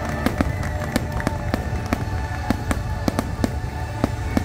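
Fireworks shells bursting in quick succession, many sharp bangs and crackles a second, over the show's music soundtrack.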